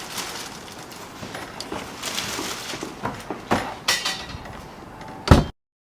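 Sound effects over a steady hiss, with several sharp knocks or whooshes, the loudest a hit about five seconds in, after which the sound cuts off suddenly to silence.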